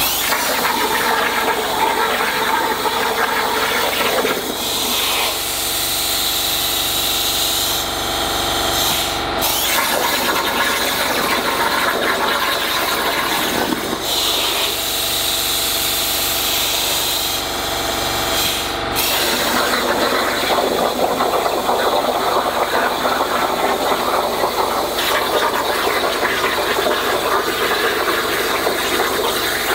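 Hypertherm plasma torch on a CNC table cutting 1/4-inch mild steel: the air-plasma arc gives a steady, loud hiss with a buzzing whine under it, broken twice by a very short gap.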